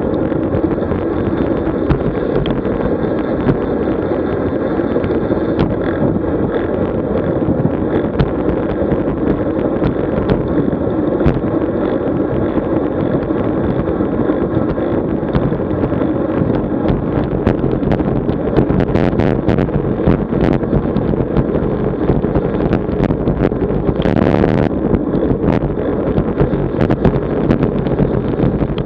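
Wind buffeting the microphone of a camera riding on a moving road bike, a steady rumbling roar of wind and road noise. A cluster of sharp clicks comes about two thirds of the way through, and a brief louder hiss near the end.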